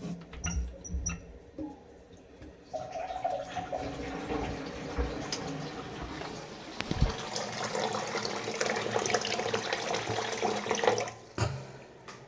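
Water running from a faucet: a few knocks at first, then the tap is opened about three seconds in, runs steadily, and is shut off near the end.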